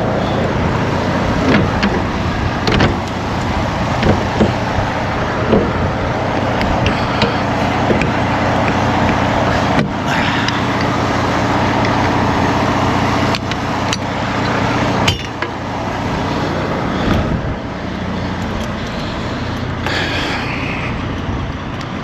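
Semi truck's diesel engine running steadily, heard from inside the cab, with scattered clicks and knocks; the engine note changes about two-thirds of the way through.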